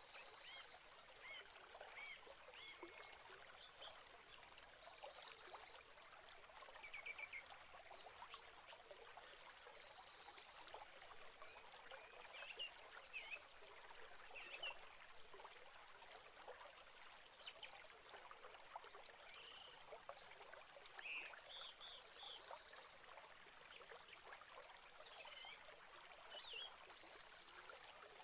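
Faint crackling and rustling in a great tit nest box, with many short high chirps and quick trills of small birds scattered through it.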